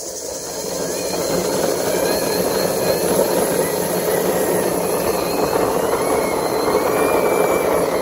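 Toy micro bus being run, with a steady engine-like whirring rumble that builds over the first second or two and then holds.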